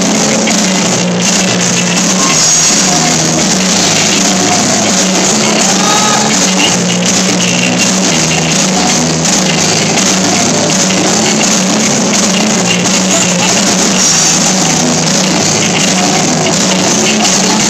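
Live rock band playing steadily and loudly: electric guitars and a drum kit, with a singer at the microphone.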